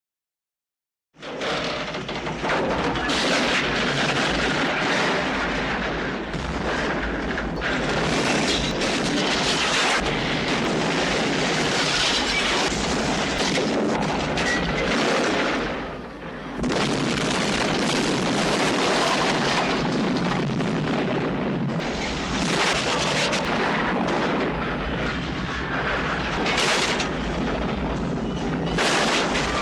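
Train crash sound effect: a loud, continuous crashing din with booms. It starts suddenly about a second in and dips briefly about halfway through.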